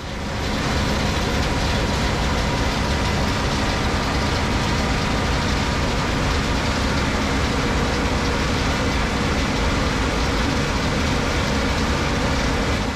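Case IH 8250 combine harvester running steadily while harvesting wheat: a constant engine and machinery drone with a steady hum, fading in over the first second.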